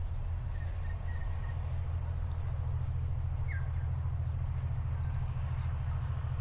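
Outdoor park ambience: a steady low rumble with a few faint short bird chirps, three close together near the start and one falling chirp about halfway through.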